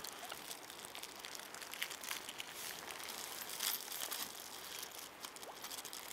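A compacted block of krill being broken apart for chum: a faint, irregular crunching and crackling of the clumped shrimp, with a few sharper ticks.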